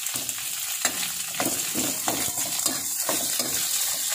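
Sliced onions sizzling in hot oil in a kadhai, freshly added, with irregular scraping knocks of a spatula against the pan as they are stirred.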